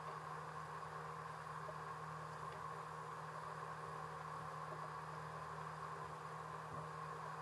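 Boat engine running steadily: an even, unchanging drone.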